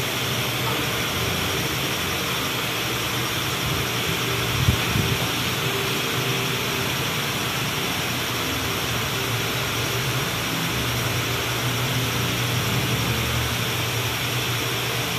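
Steady room background noise, a low hum under an even hiss, as of fans or air-conditioning running, with a single soft knock about five seconds in.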